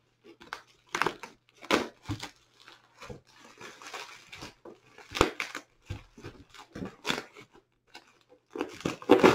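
Layers of plastic wrap and cardboard packing being torn open and crinkled by hand, in irregular bursts of tearing and crackling, loudest just before the end.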